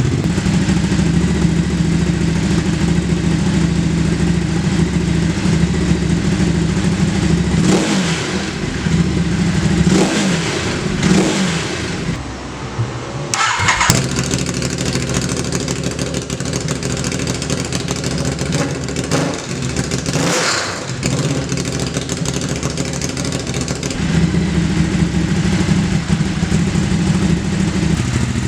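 Ducati Hypermotard 939 SP's L-twin engine idling through an aftermarket exhaust and blipped several times, the revs rising and falling quickly. A single sharp crack comes about halfway through.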